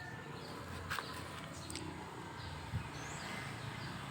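Faint outdoor ambience with small birds chirping in the background, a light click about a second in and a soft low knock later on.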